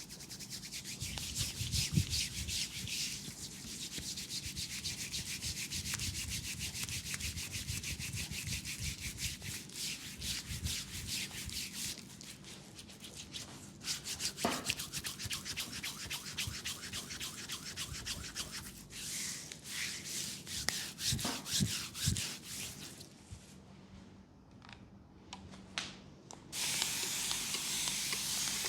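Hands rubbing quickly and rhythmically over the skin of a leg during a fast massage, a dense scratchy swishing that eases off late on. Near the end a steady hiss starts.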